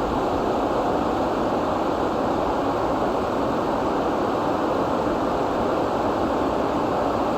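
Steady rain falling, an even, unbroken rush of noise with no single drops or breaks standing out.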